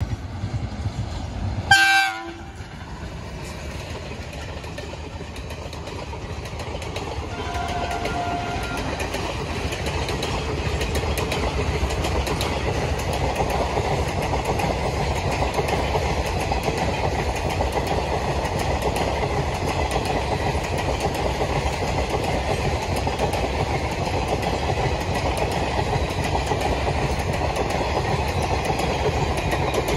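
WAP-1 electric locomotive sounds a short horn blast about two seconds in, then a fainter horn note near eight seconds. The train's rumble and wheel clatter on the rails build as it draws level and stay steady as the coaches and parcel vans roll past.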